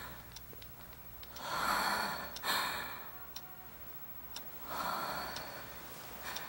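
A person taking two long breaths, about three seconds apart, over a clock ticking softly about once a second.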